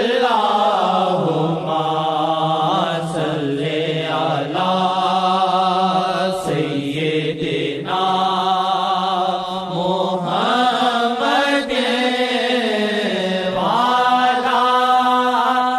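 A single voice singing a naat, an Urdu devotional poem in praise of the Prophet, without instruments. The phrases are held on long, wavering notes with short breaks between them.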